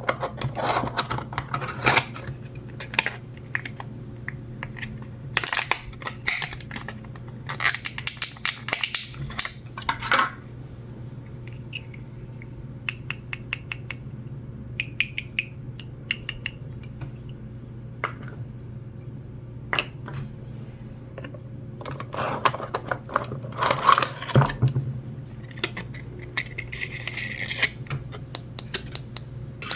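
Small plastic toy pieces handled up close: a run of irregular clicks, taps and light scrapes over a steady low hum.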